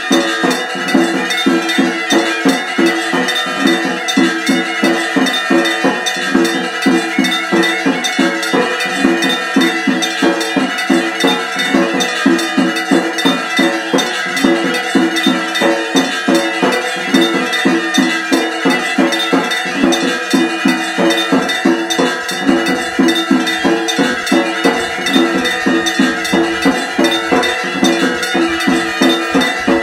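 Temple bells being rung continuously in a steady rhythm, metal clanging about twice a second with the ring carrying on between strikes.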